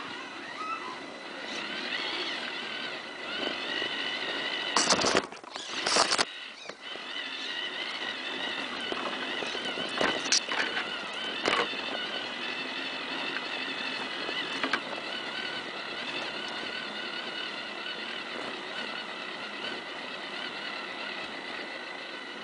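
Whine of a Tamiya CR-01 radio-control crawler's electric motor and gears, wavering in pitch with the throttle, heard up close from a camera on its front bumper. Loud knocks about five and six seconds in, and a few smaller ones around ten to twelve seconds, as the truck jolts through the snow.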